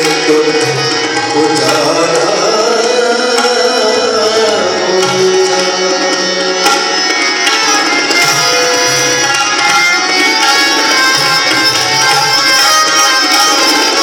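Harmonium and tabla playing a passage of a ghazal in Hindustani light-classical style: the harmonium holds and moves between sustained reed notes while the tabla keeps a steady rhythm of strokes, which grow busier about halfway through.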